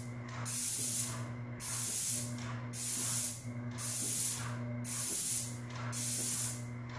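Airless paint sprayer with a 312 fine-finish tip hissing in six short passes, about one a second, as the trigger is pulled and released on each stroke over the corbel. A steady low hum runs underneath.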